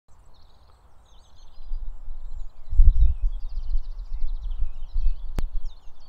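Small birds chirping and twittering throughout, over a low, uneven rumble that comes in about two seconds in and is the loudest sound. A single sharp click near the end.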